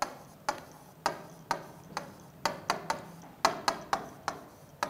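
Marker pen writing on a whiteboard: a run of sharp, irregular clicks and taps, roughly three a second, as each stroke of the letters touches down.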